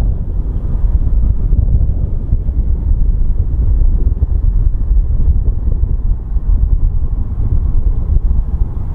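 Boeing 737-900's twin CFM56-7B turbofan engines at takeoff thrust, a loud steady low rumble as the jet lifts off and climbs away.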